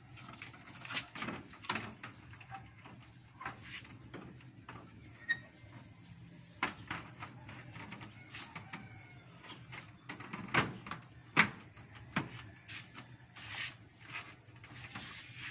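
Plastic clicks and knocks as a Nissan Navara's chrome front grille is handled and pressed onto its clips. The clicks come irregularly, with two louder clacks about two-thirds of the way through.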